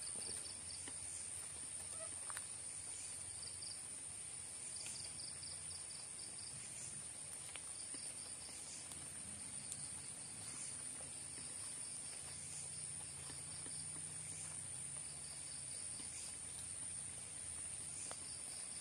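Night insects calling: a steady high-pitched drone with short bursts of rapid chirps repeating every second or two.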